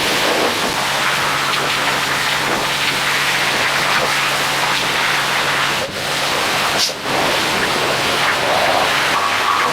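Pressure washer spraying degreaser off a motorcycle engine: a loud steady hiss of water jet, with the low hum of the washer's pump under it for the first few seconds. The spray breaks off briefly twice, about six and seven seconds in.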